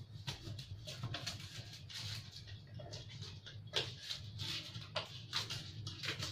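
Blade slitting the wrapping and tape along the edge of a parcel: an irregular run of short, scratchy scraping strokes.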